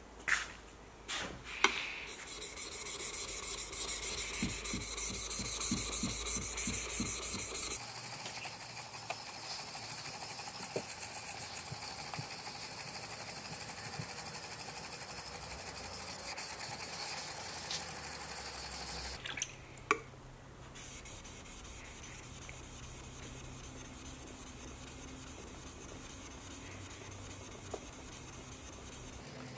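Steel plane iron from a Bailey No. 4 hand plane rubbed back and forth flat on wet sharpening stones, a gritty scraping. A few clicks near the start and again about two-thirds through, as a stone is swapped, and the rubbing is quieter in the last part.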